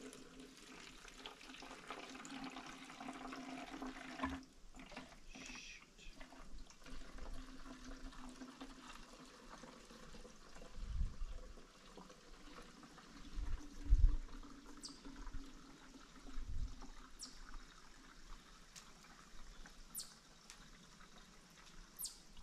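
Gasoline pouring from a plastic jerry can into a two-stroke mixing bottle in a steady trickle, filling it to mix chainsaw fuel. A few low thumps about halfway through.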